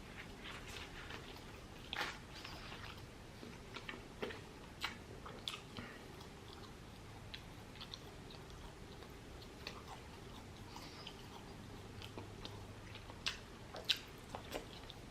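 Close-up eating sounds: a person chewing and biting a mouthful of chicken biryani with naan, with scattered wet smacks and small clicks.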